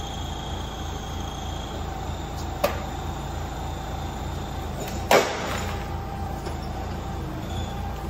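A forklift runs steadily while it lifts a truck frame on a chain. There is a light click partway through, and about five seconds in a single loud metallic clank rings on briefly.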